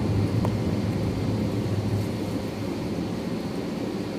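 Low rumble of another jet airliner taking off, heard from inside an airliner cabin, slowly fading over the steady hiss of the cabin air.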